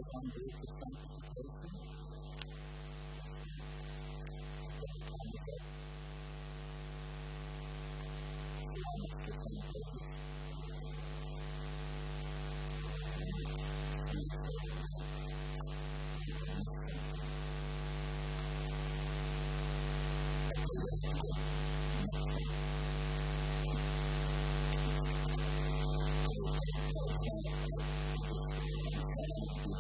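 Steady electrical mains hum and buzz through a sound system, with a hiss that grows slowly louder.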